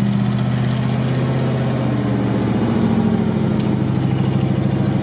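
GAZ-66 truck's engine running at low revs as the truck crawls through deep mud, a steady low drone that rises slightly about two seconds in.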